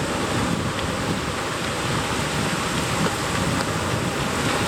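Steady rushing wind, with gusts buffeting the microphone into a low rumble.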